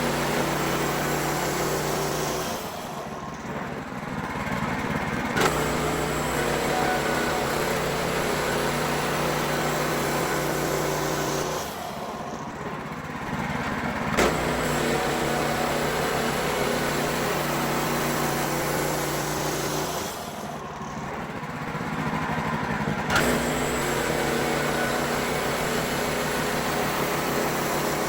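WoodMizer LX55 portable band sawmill running steadily, its band blade cutting pine boards. The sound dips three times for a few seconds, and each lull ends with a sharp click, in a repeating cycle of about 8 to 9 seconds.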